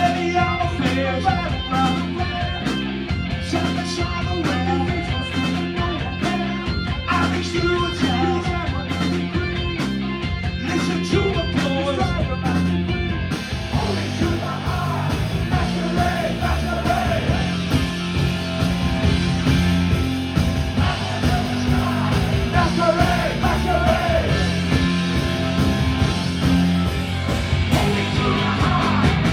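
Live punk rock band playing loud and full, with electric guitars, bass and drums, and singing over it.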